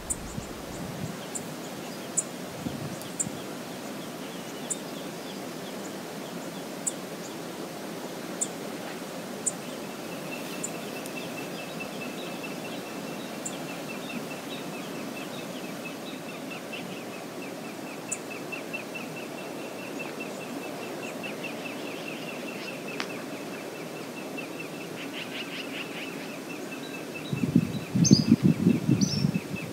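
Steady outdoor background noise with bird sounds: a few sharp high chirps early on, then a long, rapid, evenly pulsed high trill that keeps going from about a third of the way in. Near the end there is a short burst of loud low rumbling.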